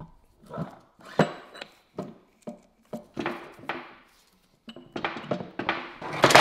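Metal parts of a Ferrari F430 gearbox clinking and knocking as the differential is worked down into the gearbox casing. The clinks come one by one at first, then thicker and louder near the end as it settles into place.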